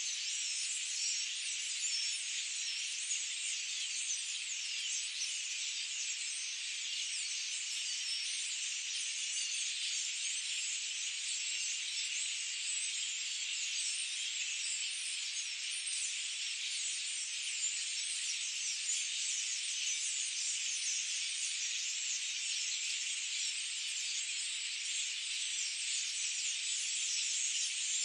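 Dense, steady chorus of countless high chirps from forest wildlife, with no low sounds beneath it.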